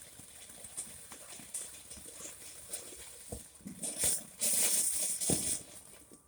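Jitterbug ground-spinner firework sputtering with scattered small pops and crackles, then a loud hiss of spraying sparks for about a second near the end.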